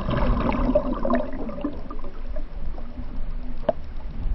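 Water gurgling and sloshing with scattered small splashes, and one sharp knock near the end.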